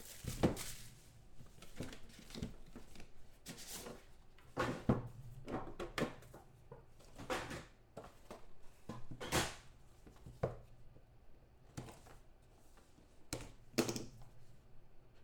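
Cardboard handling sounds from a trading-card hobby box being opened by hand: the lid lifted off and the card pack inside taken out and set down, with irregular knocks and scrapes of cardboard on the tabletop, a few of them louder.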